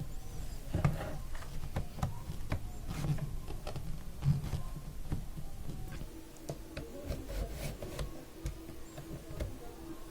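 Handling noise of a 2.5-inch HDD caddy being worked and pushed into a laptop's optical drive bay: light scraping and rubbing with scattered small clicks and knocks.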